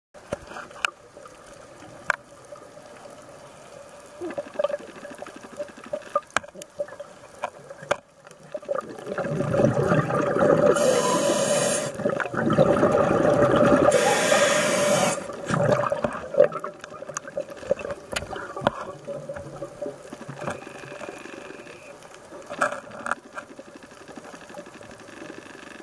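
Scuba regulators underwater, nasty sounding: scattered clicks over a quiet background, then about a third of the way in a long spell of gurgling exhaled bubbles with two brief hissing spells, after which it quiets down again.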